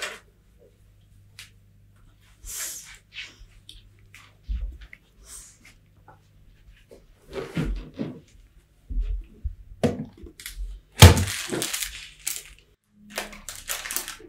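Scattered knocks and handling noises, then a loud, sharp impact about eleven seconds in with a noisy, crackling tail lasting a second or so.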